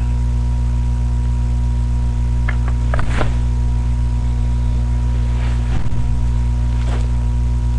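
Loud, steady electrical hum with a stack of low overtones, typical of mains hum picked up by a webcam's microphone. A few faint short scratches or taps come about three seconds in and again near six and seven seconds.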